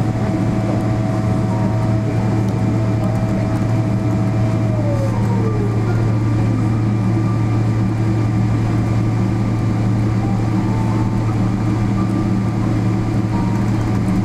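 Steady cabin noise of a Boeing 777-300ER taxiing, a low hum from its GE90-115B engines and airframe. About five seconds in, a whine slides down in pitch and fades.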